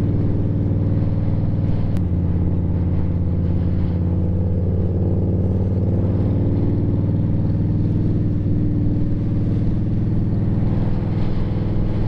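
Indian Scout Bobber Twenty's V-twin engine running steadily under way, with a small shift in the engine note about two seconds in.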